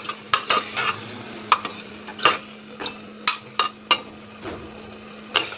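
Steel ladle scraping and clinking against the inside of a pressure cooker in irregular strokes as softened carrots and tomatoes are mashed.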